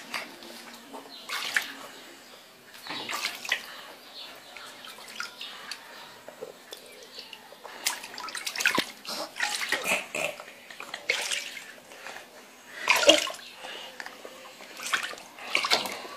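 Water splashing in a tub in repeated, irregular splashes, the loudest about thirteen seconds in.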